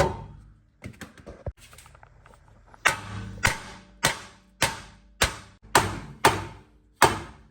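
Hammer blows driving out the 21 mm bolt that holds the front strut in: one blow, a few light taps, then a steady run of about eight blows, a little under two a second.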